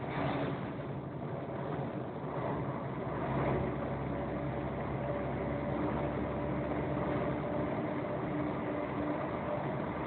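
Engine and road noise of a vehicle driving through a road tunnel. An oncoming flatbed truck passes right at the start with a brief rush of noise, and a steady engine hum comes in about halfway through.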